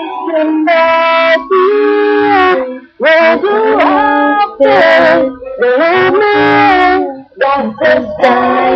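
Music: a song with a sung melody in long held notes, broken by short pauses between phrases, over instrumental accompaniment.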